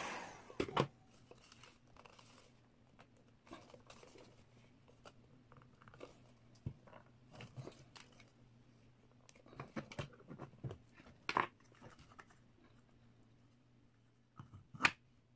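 The plastic housing of a siren horn, softened with a heat gun, being worked apart by hand: scattered small clicks, creaks and cracks of plastic as the halves loosen and separate. The heat gun's steady blowing cuts off right at the start.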